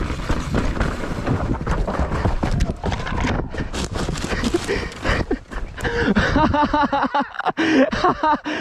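A mountain bike running fast down a dirt forest trail, its tyres rattling and knocking over roots and ruts, with wind rushing over the microphone. About six seconds in, the trail noise gives way to a person's voice calling out without clear words.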